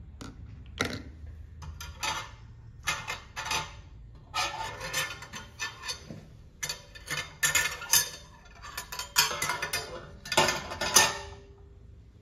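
Irregular clicks and clatters of small hard objects being handled, in short clusters that grow louder in the second half.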